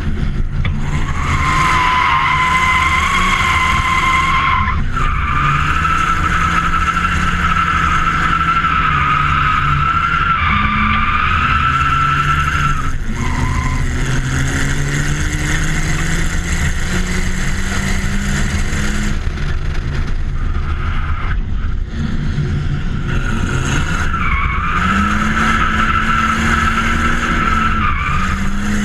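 BMW 325tds's M51 2.5-litre turbodiesel straight-six revving up and down through a drift run, with long tyre squeals during the slides. The squealing drops out around the middle while the engine pulls up in pitch, then returns near the end.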